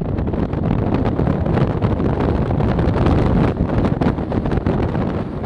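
Hurricane-force wind buffeting the microphone: a loud, continuous gusting rumble that surges and falls irregularly.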